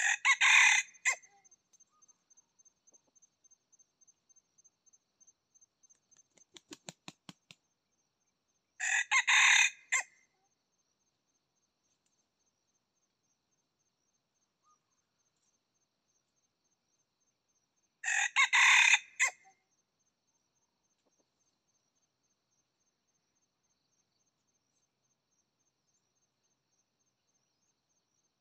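A junglefowl rooster crowing three times, each crow short, about a second and a half, and roughly nine seconds apart. Between the crows a faint, steady high insect trill.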